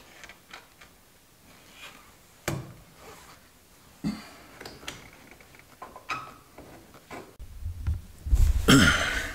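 Scattered knocks, clicks and rustles as headliner fabric and its support bows are handled and hooked into place in a car roof. Near the end, a short, loud throaty vocal sound from the man working.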